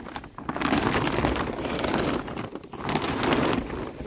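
Wet clear plastic sheeting crinkling and rustling as it is rolled up and handled, in two stretches with a short lull about two and a half seconds in.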